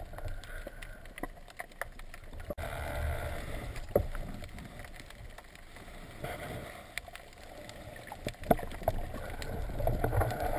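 Underwater ambience heard through a camera's waterproof housing: a low rumble of moving water with scattered sharp clicks and knocks.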